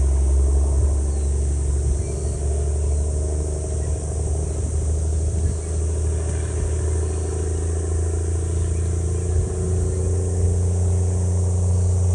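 A passing sightseeing boat's engine: a steady low drone with a fainter, even hum above it.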